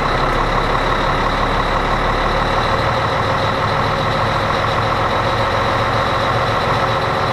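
Volvo D12 inline-six turbo diesel of a 2000 Volvo semi idling steadily at about 1,000 rpm, heard from inside the cab, warming up after a cold start.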